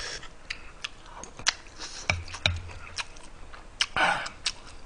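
Close-miked eating: metal chopsticks and spoon clicking against the dishes, with chewing, and a short breathy sound about four seconds in.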